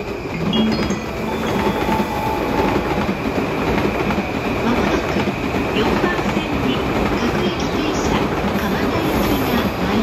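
Electric train running past at close range: steady loud rolling noise of steel wheels on rails, swelling over the first second and then holding steady.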